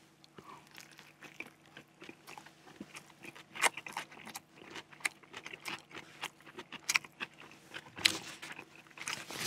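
Close-up chewing and biting of a slice of momo pizza: irregular crunchy clicks and wet mouth sounds, a few sharper crunches among them, over a faint steady hum.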